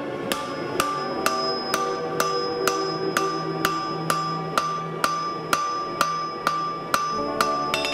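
Blacksmith's hand hammer striking a red-hot steel bar on an anvil in an even rhythm, about two blows a second, each blow leaving the anvil ringing.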